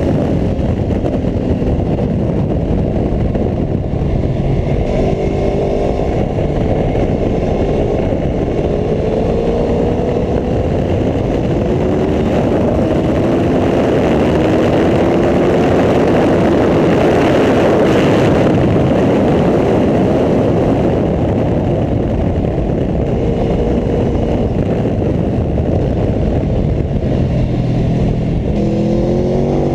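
Aprilia Tuono V4 1100 RR's V4 engine pulling hard through the gears, its pitch climbing and then falling back at each change, over a loud rushing noise that swells about halfway through.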